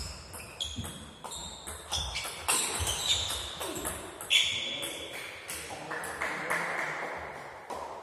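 Table tennis rally: the ball clicking off the table and the rackets in quick succession, each hit ringing briefly in a large hall.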